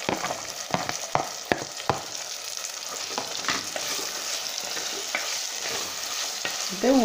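Diced carrots scraped into a clay pot of hot sesame oil with beetroot and lemon pieces: a few sharp knocks in the first couple of seconds, then a wooden spatula stirring the vegetables while the oil sizzles steadily.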